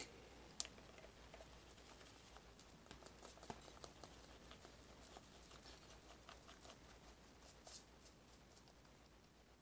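Grated cheese being shaken from a plastic shaker can onto a bowl of chili: faint, scattered light ticks and patter.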